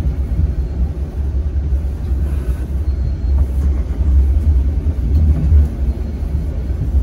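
Hong Kong Light Rail train running, its low, steady rumble heard from inside the passenger car.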